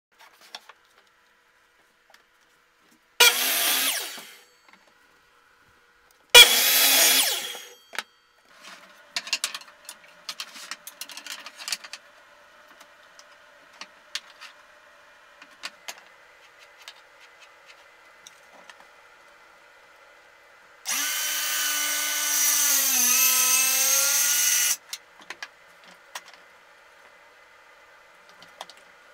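Woodworking shop sounds: two short loud bursts of tool noise, then scattered clicks and knocks of clamps and wood being handled. About three-quarters of the way in, a circular saw runs and cuts for about four seconds, its motor pitch dipping as the blade bites into the wood.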